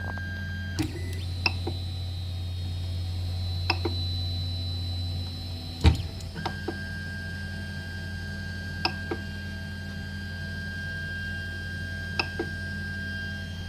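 Creality Ender 3 Pro 3D printer switched on and idling: a steady low hum with thin high electrical whines over it. Scattered clicks sound over the hum, the loudest about six seconds in, where the whine stops and then comes back.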